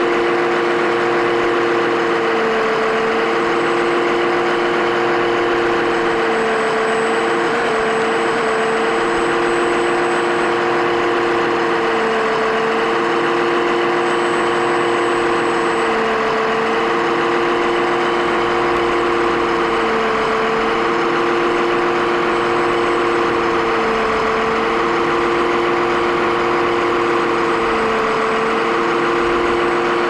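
Engine idling steadily, most likely the electronic diesel sound of a radio-controlled truck or construction machine, with a pattern that repeats about every four seconds.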